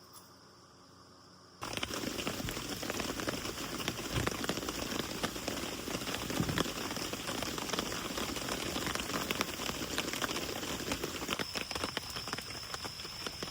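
Rain pattering steadily, dense drops ticking on a surface, starting abruptly about two seconds in after a faint hum. A thin steady high tone comes in near the end.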